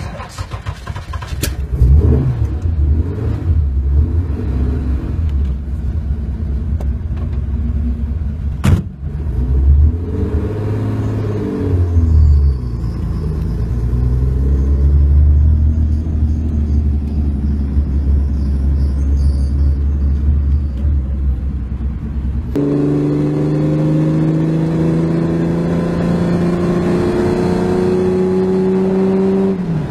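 Car engine started with the ignition key and running with a loud low rumble, its pitch rising and falling with a few blips of the throttle. After a sudden change, the car accelerates, the engine note climbing steadily, and it drops as the driver changes gear near the end.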